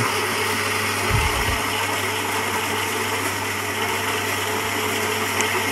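Philips EP1220 espresso machine's built-in ceramic grinder grinding coffee beans for an espresso: a steady grinding whir over a low hum, with a few dull low knocks about a second in.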